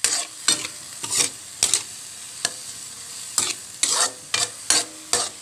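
A spatula scrapes and stirs diced hotdog and vegetables around a wok, about ten uneven strokes, roughly two a second. Under the strokes the frying oil sizzles steadily.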